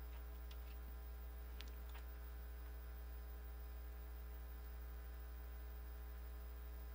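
Steady low electrical hum with evenly spaced buzzing overtones, typical of mains hum picked up in a recording setup, with a few faint clicks in the first two seconds.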